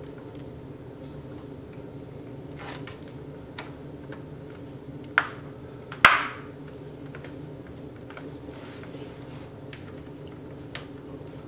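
Clicks and knocks of a laptop's hard drive and plastic parts being handled and fitted by hand, with two sharp, loud clicks about a second apart near the middle and a few lighter ticks around them, over a steady low hum.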